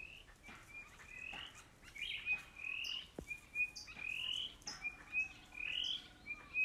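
An animal calling over and over, about once a second: each call is a short rising note followed by a few clipped notes at one pitch.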